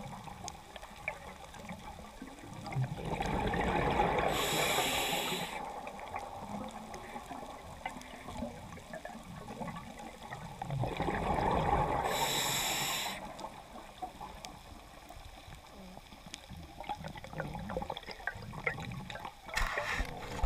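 A scuba diver breathing through a regulator underwater. Two full breaths, about three and eleven seconds in, each a bubbly rush that ends in a short hiss, with another hiss starting at the very end.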